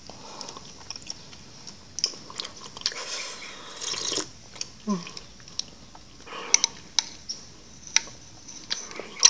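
Close-up eating sounds: fish soup slurped from a glass bowl about three to four seconds in, soft wet chewing, and a short hum near five seconds. Several light, sharp clicks follow in the second half, as chopsticks tap the bowl.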